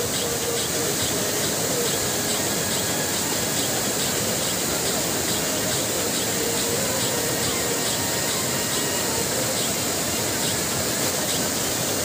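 Chitradhara waterfall in spate, muddy brown water pouring over stepped rock ledges: a steady, even rush of falling water.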